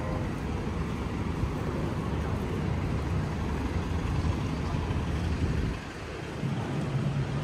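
Busy city street traffic noise: a steady low rumble of passing vehicles, dipping briefly about six seconds in.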